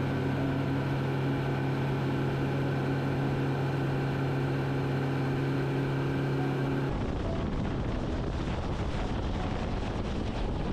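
Yamaha four-stroke outboard motor running steadily at speed, one even engine note over the rush of water in the wake. About seven seconds in, the engine note stops, leaving a rough rush of wind and water.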